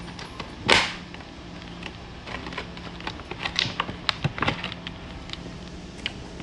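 One sharp knock about a second in, then a quick run of clicks and taps, like small hard objects being handled and set down.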